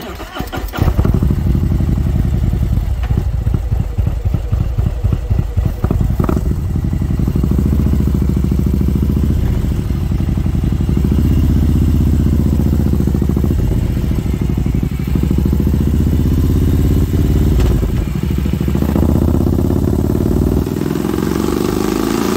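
Harley-Davidson Milwaukee-Eight 114 V-twin with an S&S 475 cam, running loud on a freshly flashed auto-tune map. It comes in suddenly with distinct lumpy pulses for the first several seconds, then runs steady as the bike rides along.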